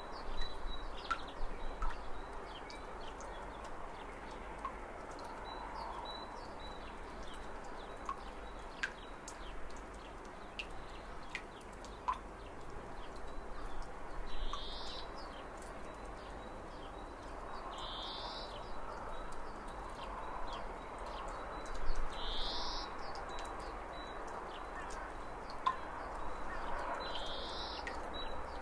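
Birds calling over a steady background hiss: a short rising call comes four times, about every four seconds, among scattered faint high chirps and clicks.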